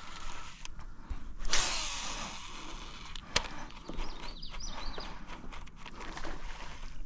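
Fishing tackle being handled from a small boat during a cast and retrieve. There is a brief swishing rush about a second and a half in, a single sharp click near the middle, and low handling noise throughout, with a few short high chirps.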